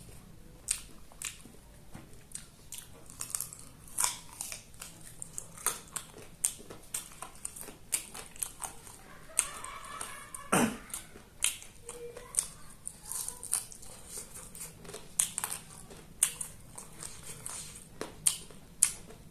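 Close-miked mukbang eating: a person biting and chewing chicken, with many sharp crunchy clicks and wet mouth sounds, several a second. About ten and a half seconds in there is a short sound that falls in pitch.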